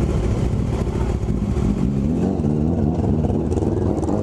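Older Honda CB500 parallel-twin motorcycle running loud through an aftermarket Coyote exhaust, a steady deep engine note that wavers slightly in pitch in the second half.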